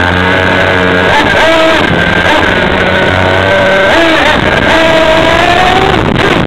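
Motor of a radio-controlled off-road car, heard from a camera mounted on the car. It runs loud and continuous, its pitch drifting up and down with the throttle as the car drives over dirt.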